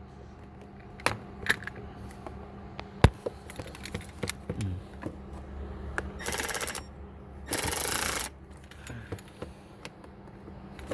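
Hand tools at work in a car's engine bay: scattered metal clicks and taps, a sharp knock about three seconds in, and two short runs of rapid ratchet clicking from a ratchet with a 10 mm socket, about six and seven and a half seconds in.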